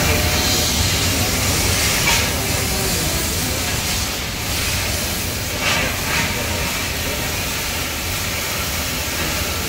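Thermic (oxygen) lance hissing steadily as it burns into the steel wall of a safe, with brief louder flares about two seconds in and again near the middle.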